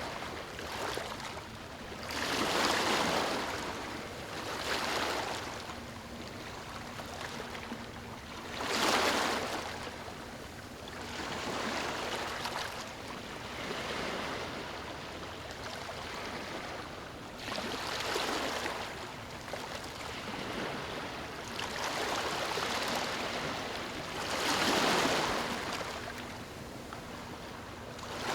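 Small waves lapping on a beach, washing in and drawing back every few seconds in soft rising and falling swells.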